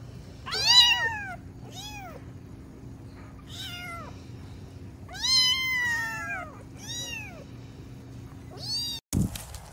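Kittens meowing, about six high calls that rise and fall in pitch, the longest about five seconds in, over a faint steady hum.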